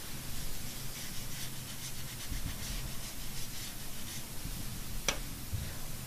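Paintbrush rubbing watercolor paint onto textured watercolor paper in soft repeated strokes, with a single sharp click about five seconds in.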